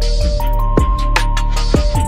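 Electronic background music with a steady beat: held synth notes over deep drum hits and hi-hat ticks.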